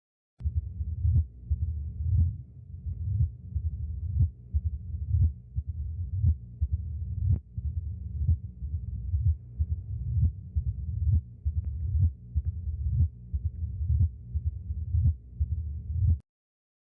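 Recorded heart sounds as heard through a stethoscope, beating about once a second, with a low continuous sound filling the gaps between beats. It starts about half a second in and cuts off suddenly near the end.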